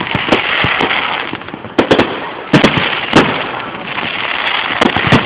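Aerial fireworks bursting: a string of sharp bangs, several close together, over steady crackling.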